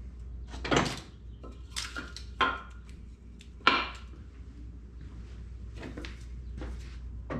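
Glued-up wooden panels and their wooden cauls knocking and clattering together as they are handled and lifted off the bar clamps. There are four or five sharp knocks, the loudest a little under four seconds in, with lighter clicks between them over a low steady hum.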